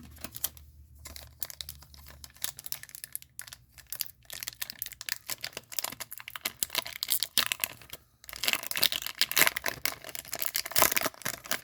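Hands handling and opening a trading-card pack: light rustling and crackle of the wrapper and cards, turning into loud, dense crinkling and tearing of the pack wrapper from about eight seconds in.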